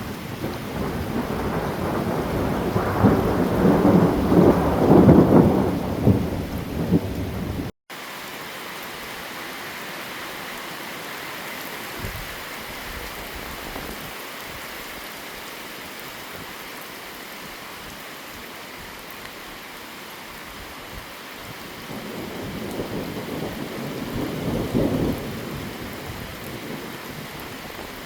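Heavy rain falling steadily in a thunderstorm, with a long, loud rumble of thunder over the first seven seconds or so that cuts off sharply at about eight seconds. Rain alone follows, then a second, quieter rumble of thunder a few seconds before the end.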